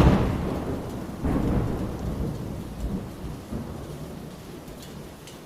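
Thunder rolling and rumbling just after a close strike, swelling again about a second in and then slowly dying away, with rain hissing steadily underneath.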